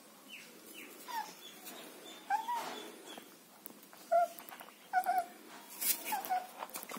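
German Shepherd puppies whimpering: a string of short, high whines, some bending up and down, with a few sharp clicks among them.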